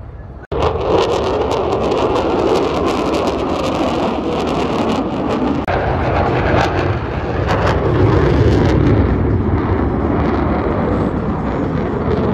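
Loud, steady rushing jet-engine noise from a fighter jet flying a display pass and climbing, with wind on the microphone. The sound breaks off sharply for a moment about half a second in, then runs on.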